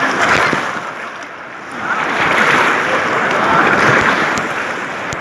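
Rushing, splashing water around a tube on the water, rising and falling in waves of loudness, with some wind buffeting the microphone.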